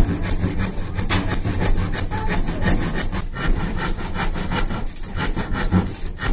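A saw cutting wood with quick, even back-and-forth strokes.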